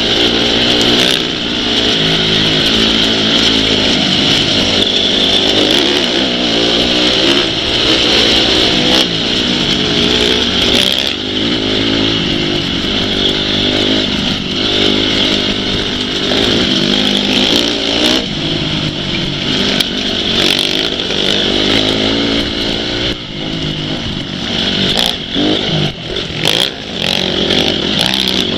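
Off-road motorcycle engines running and revving, their pitch rising and falling again and again, with a few sharp clicks or knocks.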